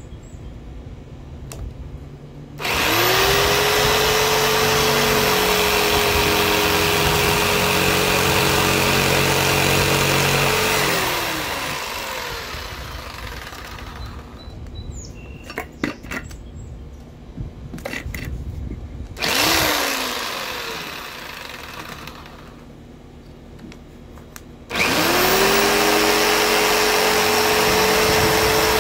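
Electric jigsaw sawing into a rubber car tyre's tread. The motor spins up to a steady whine and runs for about eight seconds, then winds down. It gives a brief burst about two-thirds of the way in, then starts up again near the end.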